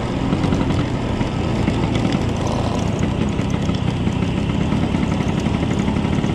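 Vintage Vespa scooter's two-stroke engine running steadily as it is ridden along at an even pace, picked up by a camera mounted on its handlebar.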